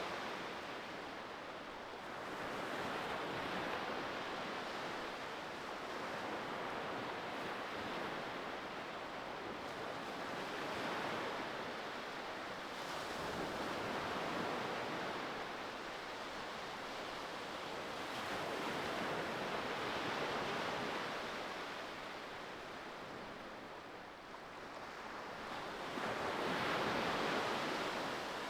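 Ocean surf: a steady rushing wash of waves that swells and eases every few seconds, with one louder swell near the end.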